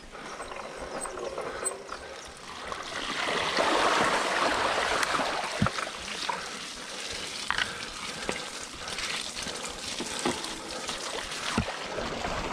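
Mountain bike rolling along a rough trail: a steady rush of tyre noise that swells a couple of seconds in, with scattered clicks and knocks from the bike.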